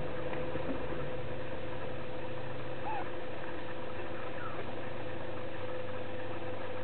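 A steady background hum with a constant tone, and over it a few faint, short whimpers from young puppies.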